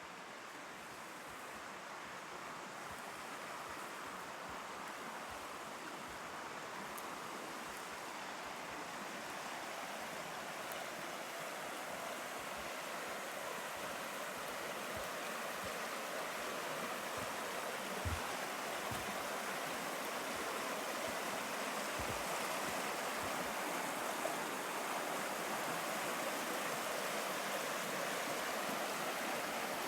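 Rushing water, a steady hiss that grows gradually louder throughout, with a couple of brief low thumps about two-thirds of the way through.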